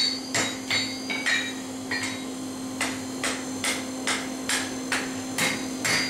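Hand hammer striking the red-hot end of a steel bar on an anvil to square it up: steady blows, about two to three a second, each with a brief ring from the anvil, with a short pause near the middle.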